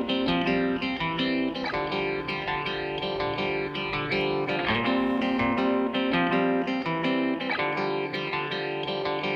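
Background music led by plucked guitar, with steady note-by-note picking.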